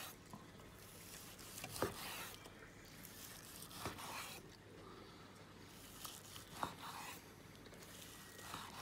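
Long Dalstrong knife slicing through a smoked beef joint: soft scraping and tearing of the blade through the meat, with a few sharp taps as it meets the wooden chopping board.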